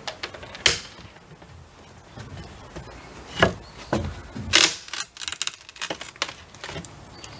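Prying at the exterior wooden trim and siding around an old window with a hand tool: a string of sharp knocks and clicks of wood and metal, the loudest crack about four and a half seconds in, followed by a quick run of rattling clicks.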